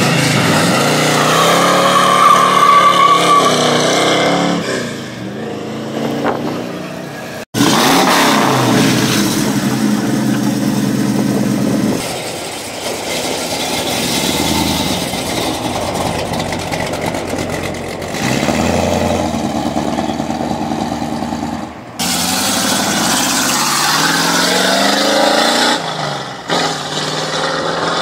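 American V8 car engines revving and accelerating, in three clips that cut off sharply about 7 seconds in and about 22 seconds in. In the first, a Plymouth Road Runner's V8 rises and falls in pitch as the car pulls away.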